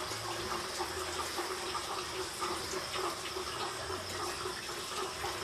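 Jungle ambience: a steady, even hiss with a constant high tone and a lower steady band, and a low hum that comes and goes underneath.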